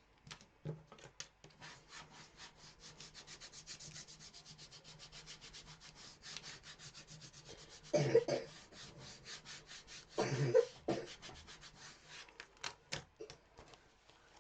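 Quick, even back-and-forth rubbing strokes on the flat craft blank's surface, about ten a second, then two louder short bursts about two seconds apart and a few light clicks.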